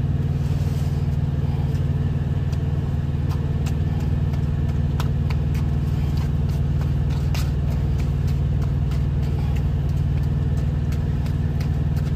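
Steady low hum of an idling truck diesel engine, heard from inside the cab, with light scattered clicks and scrapes of a fork mashing potatoes in an aluminium foil pan.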